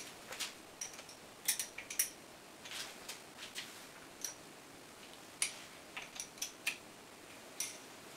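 Steel open-end wrench clicking and clinking on the hollow lock nuts of a Demag ZBV lifting motor's brake as they are tightened to lock in the set air gap: a light scatter of short, sharp metallic clicks at uneven intervals.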